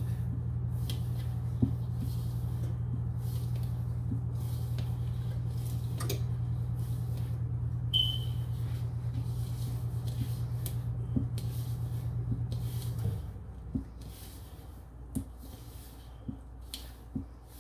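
Hands rubbing flour and vegetable shortening together into a crumbly dough in a plastic bowl: soft scattered taps and squishes, under a steady low hum that stops about thirteen seconds in.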